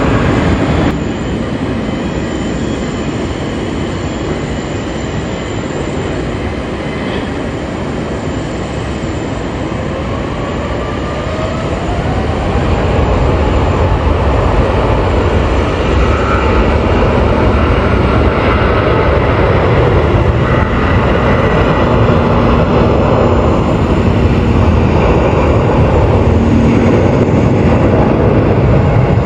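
Airbus A350-900's Rolls-Royce Trent XWB turbofans spooling up for takeoff: a rising whine over a steady jet roar that grows louder from about halfway through as takeoff power builds. A different engine sound cuts off about a second in.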